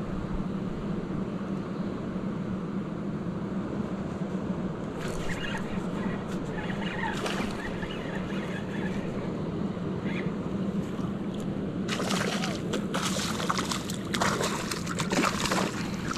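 Steady rushing water with a constant low hum under it. From about twelve seconds in comes a run of irregular knocks, rustles and splashes.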